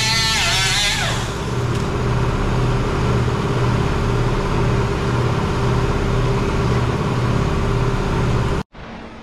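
Air-powered cut-off wheel grinding through a truck's steel rocker panel, its high whine wavering under load, then winding down and fading about a second in. A steady low machine hum with a regular throb, a little more than once a second, carries on. Near the end the sound cuts off abruptly to a quieter hum.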